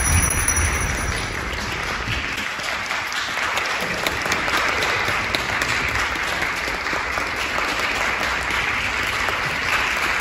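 Audience applauding, a steady run of clapping.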